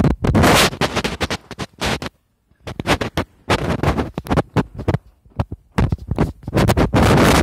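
Phone microphone handling noise: loud, irregular scraping and rustling as the phone is moved about and rubbed against clothing, with a brief pause about two seconds in.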